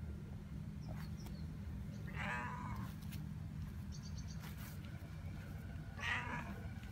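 Cat meowing twice, once about two seconds in and again, louder, near the end, each call about half a second long, over a steady low background hum.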